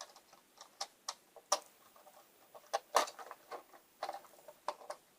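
Irregular small clicks and taps of hard plastic parts being handled: plastic wheelsets being worked out of an LGB G scale model train truck.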